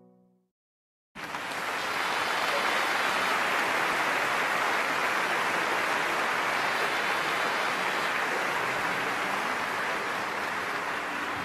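Theatre audience applauding, a steady dense clatter that starts abruptly about a second in after a moment of silence.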